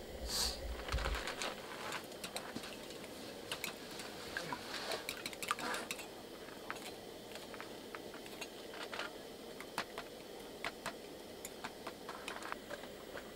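Light, irregular clicks and clinks of a utensil against a small stainless-steel bowl as eggs are beaten with chopped green onion.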